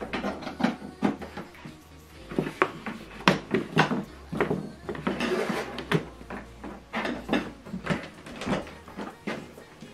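Irregular knocks and clicks of hands handling the setup: a flat-screen TV being shifted on its stand, with cables and plugs being moved.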